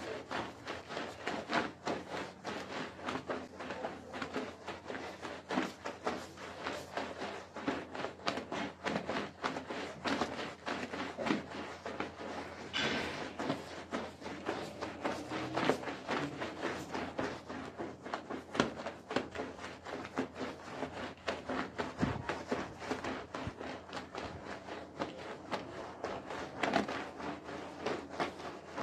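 Push broom scrubbing a wet, soap-lathered rug in quick, repeated back-and-forth strokes, the bristles swishing through the foamy pile.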